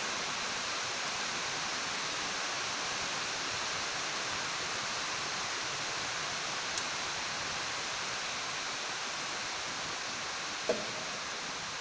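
Steady, even hiss of background noise, with a faint tick about seven seconds in and a short knock near the end.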